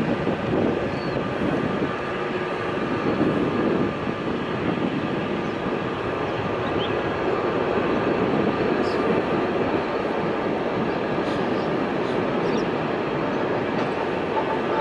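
Steady jet noise from an Airbus A380's four Rolls-Royce Trent 900 engines as the aircraft lands, a dense rumble with no break.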